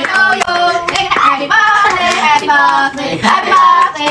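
A woman and children singing a birthday song together, with hands clapping along throughout.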